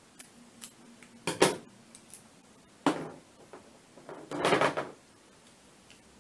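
Handling noises on a work surface: a few light clicks, then sharp knocks about one and a half, three and four and a half seconds in, the last a longer scrape, as small plastic and hand-tool items are picked up and set down.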